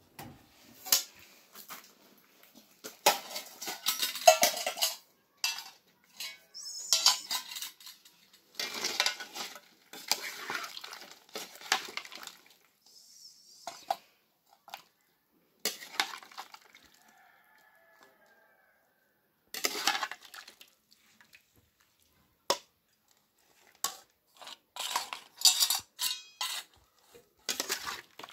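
A metal ladle scooping food and clinking and scraping against stainless steel bowls and a pot, in irregular bursts of clatter with short pauses between.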